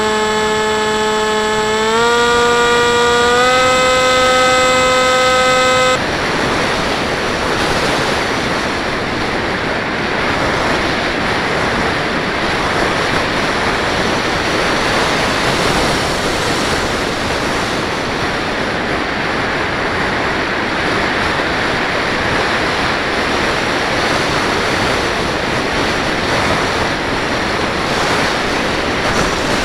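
Onboard sound of an FPV model plane: its propeller motor whines at a steady pitch, dips slightly and rises again with the throttle, then cuts off suddenly about six seconds in. After that only a steady rush of wind over the airframe remains, the plane gliding with the motor off.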